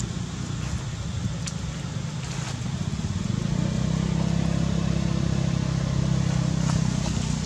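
A motor engine running steadily with a low hum, growing louder about halfway through.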